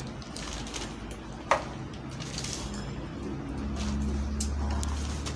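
Meal-table eating noises: small clinks and rustles of spoons and hands on plates, with one sharp click about a second and a half in, over a low hum that grows louder in the second half.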